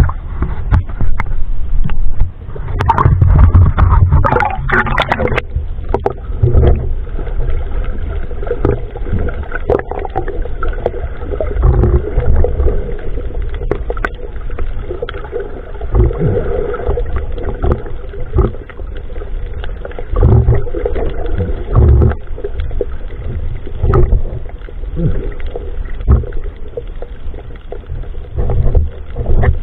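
Water sloshing and splashing against a waterproof action-camera housing at the surface, then the muffled rumble of the camera underwater, with scattered dull knocks and thumps.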